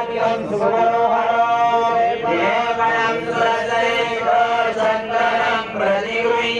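A man's voice chanting Sanskrit puja mantras in a continuous intoned recitation with long held notes, as used while offerings are made to a deity or saint.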